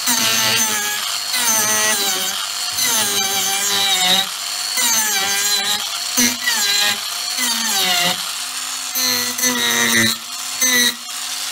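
Proxxon long-neck angle grinder driving a 50 mm, 8-tooth King Arthur's Tools mini chainsaw carving disc, cutting and scooping into softwood. The motor's pitch repeatedly sags as the teeth bite and rises again as the pressure eases. Near the end it runs steadier with the disc lifted off the wood.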